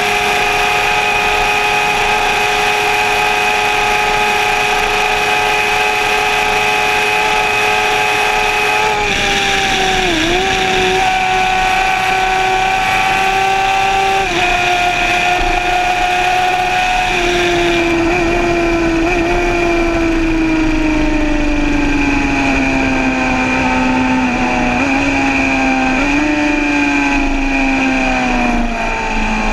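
Suzuki sport motorcycle's engine running at high, steady revs at speed, heard from on board. The note dips briefly a couple of times around the middle, then falls slowly over the last ten seconds.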